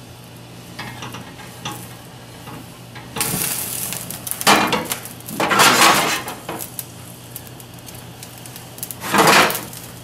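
Cognac in a hot sauté pan over a gas burner starts sizzling about three seconds in and catches fire in a flambé, the alcohol burning off, with three loud surges of sizzle as the pan is worked over the flame. Light clinks of the pan on the metal stove grate.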